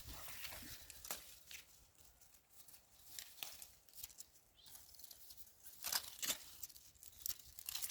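Cowpea plants rustling and scattered light snaps as pods are picked by hand, with a cluster of sharper snaps about six seconds in.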